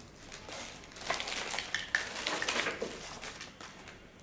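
Unboxed accessories and packaging being handled by hand: irregular crinkling and rustling with light clicks and clatter, busiest in the middle.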